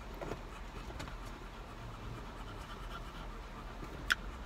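A bulldog panting softly over a low steady hum, with one short sharp squeak about four seconds in.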